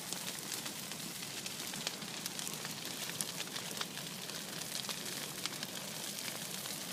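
Bonfire crackling: a steady hiss with frequent sharp pops and snaps at irregular intervals.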